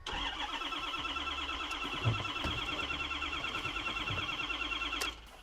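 The 2013 Ford F350's starter cranks the engine for about five seconds with a steady, rhythmic whir. The engine doesn't catch, and the cranking stops abruptly near the end. The fuel-pump shutoff switch has tripped, cutting fuel, which the owner takes to be why it won't start.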